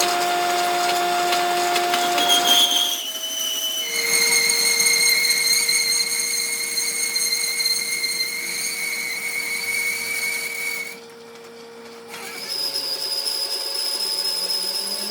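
Steady high-pitched metal squeal from machining, held on a few tones whose pitch shifts about three and four seconds in and drops away briefly near the end.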